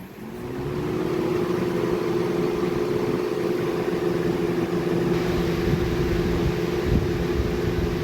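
Portable electric fan switched on: its motor hum rises in pitch over about the first second as the blades spin up, then runs steadily with a rush of air.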